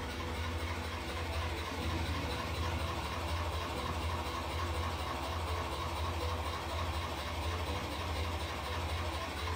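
Narrowboat engine running steadily with a deep, even hum.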